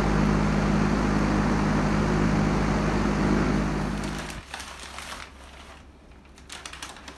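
A steady engine-like hum with a low drone, which cuts off about four seconds in. Then pink butcher paper rustles and crinkles as it is pulled open off a smoked brisket.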